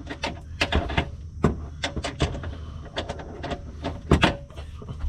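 Irregular metallic clicks and knocks of a hand tool being worked into a tight spot onto a hitch-mounting bolt, with the loudest pair of knocks about four seconds in.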